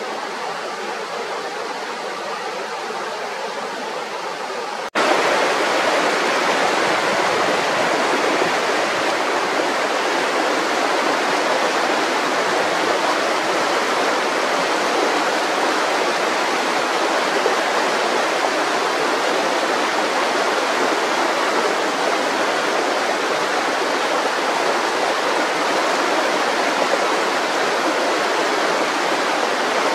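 A mountain river running in a steady, even rush of water. About five seconds in the sound cuts suddenly to a louder, fuller rush that then holds steady.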